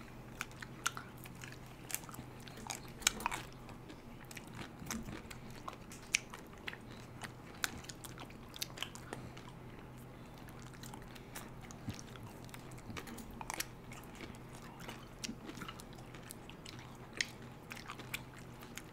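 Close-up mouth sounds of people eating frozen kulfi ice cream bars on sticks: soft, irregular lip smacks, sucking clicks and small bites, a few every second.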